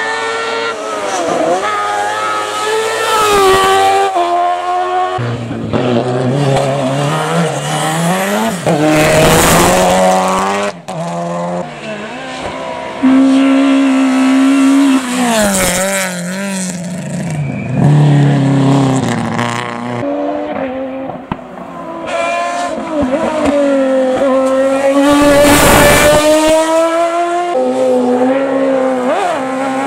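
Race car engines accelerating hard up a hillclimb stage, several cars in turn, among them a Peugeot 306 rally car. Each engine revs up and then drops sharply at every upshift, over and over.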